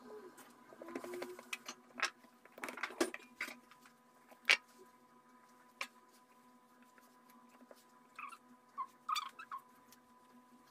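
Kitchen knife slicing a rolled log of date-filled dough and knocking against the plastic work mat: scattered sharp clicks and taps, the loudest about four and a half seconds in and a quick cluster near the end, over a faint steady hum.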